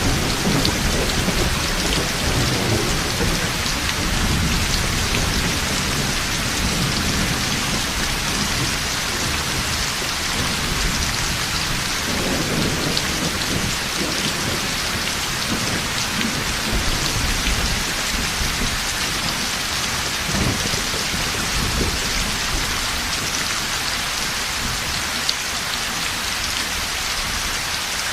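Heavy rain falling steadily, with thunder rumbling low beneath it, strongest in the first few seconds and again about twelve seconds in, then fading toward the end.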